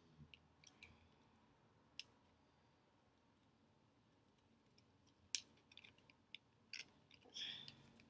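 Near silence, broken by faint, scattered clicks and crinkles of a foil sauce packet being squeezed over a fried chicken wing.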